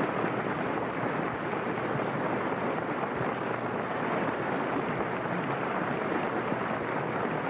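A steady rushing noise with no tone, beat or clicks, holding at an even level.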